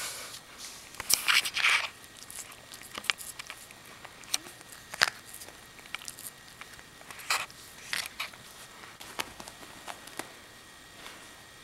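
A cat biting and clawing at a catnip ball on carpet: irregular crackles, rustles and sharp clicks, loudest in a burst a second or two in.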